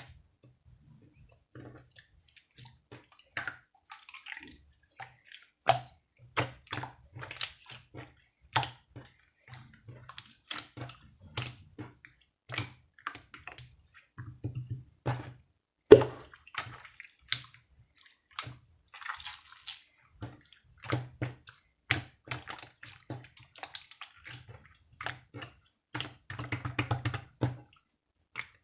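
Irregular wet sounds: water dripping, sloshing and squelching in short strokes at an uneven pace.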